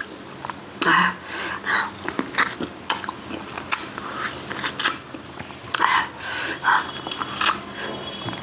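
A person chewing and biting food, with many sharp wet mouth clicks and uneven bursts of chewing about once a second.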